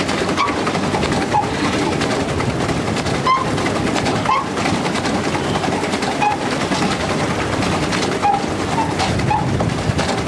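Pedal boat being pedaled: its paddle wheel churning the water with a steady clatter, and short high chirps now and then.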